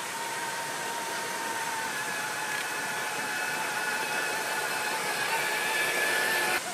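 Stock electric motor and geared drivetrain of an Axial SCX6 1/6-scale RC rock crawler whining as the truck crawls over rocky ground, with a steady hiss underneath. The whine grows louder near the end and cuts off suddenly just before the end.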